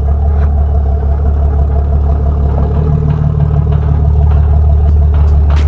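An engine running steadily, with a constant low drone and a few faint clicks near the end.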